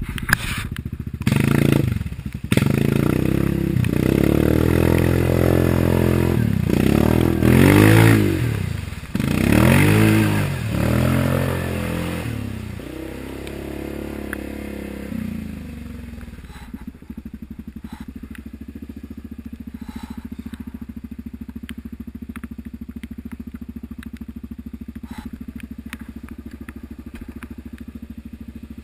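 Yamaha Grizzly ATV engine revving up and easing off again and again, its pitch rising and falling, through the first twelve seconds or so. It then settles to a steady, quieter low-rpm note for the rest of the time.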